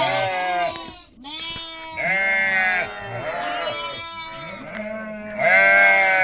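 Several goats bleating, loud wavering calls following and overlapping one another with hardly a pause.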